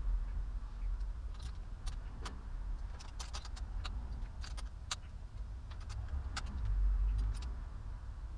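A spanner tightening a small bolt by hand: irregular light metallic clicks and taps over a low rumble.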